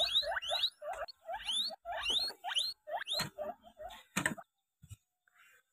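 Guinea pigs squealing while being handled: a run of short rising squeaks, about three a second, that stops about three seconds in. A single sharp knock follows about a second later.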